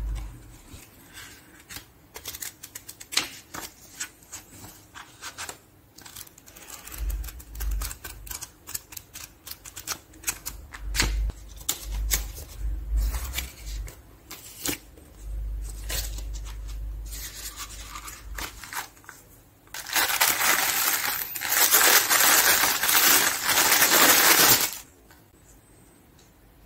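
Watch packaging being handled, with scattered clicks and taps and some low thumps. About 20 s in comes a loud rustling of packaging for about five seconds, which cuts off suddenly.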